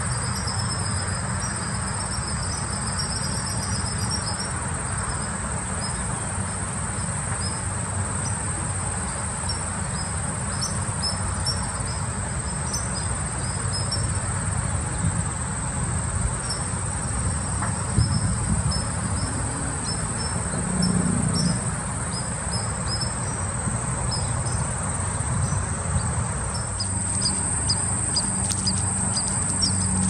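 Steady high-pitched trilling of field crickets and other insects in summer grass, with strings of short high chirps near the start and again toward the end, over a low background rumble.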